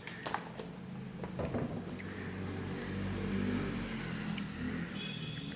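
A few light clicks and knocks as the laptop is turned over and set down, then a steady low motor hum.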